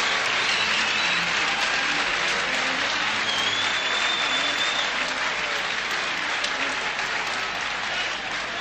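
Large concert audience applauding steadily, easing off slightly near the end, with a long high whistle a few seconds in.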